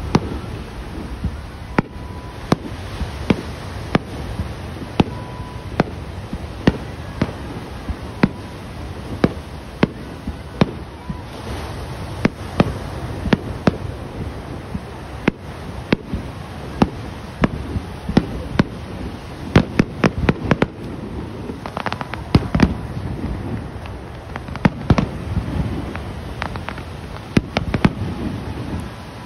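Fireworks display: aerial shells bursting in sharp bangs at irregular intervals over a low rumble, with a quick run of bangs about two-thirds of the way through.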